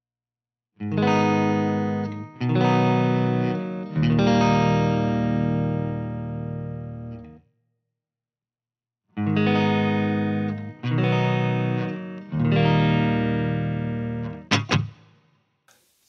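Stratocaster-style partscaster electric guitar with single-coil pickups playing strummed chords on a clean amp tone. Three chords, the last left to ring out, a pause of about two seconds, then three more chords, followed by two short clicks near the end.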